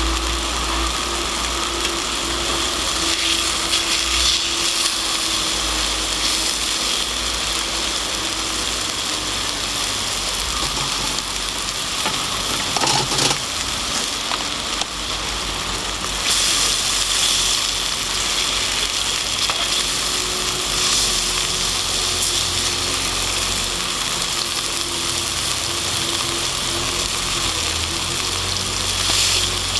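Food frying over a campfire: a steady sizzling hiss.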